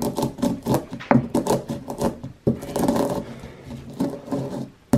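Black peppercorns being crushed and ground with a stone pestle in a heavy stone mortar: quick, irregular knocking and scraping strokes, several a second, with a brief pause about halfway through.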